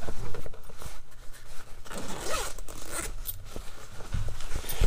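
Zipper on a fabric Craftsman tool bag being pulled open in several rasping strokes.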